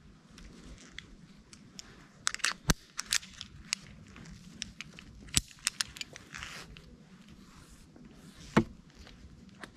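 Climbing rope being hauled by hand through a rope grab and pulley: rope and gloves rustling, with sharp clicks and rattles from the metal hardware, three of them clearly louder than the rest.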